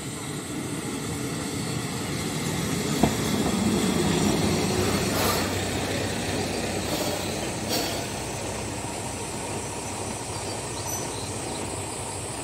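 Hisatsu Orange Railway diesel railcar pulling in alongside the platform: engine and wheels on the rails growing louder to a peak about four seconds in, then easing off as it slows. A sharp click comes about three seconds in, and there are brief hissing sounds around five seconds and again near eight seconds.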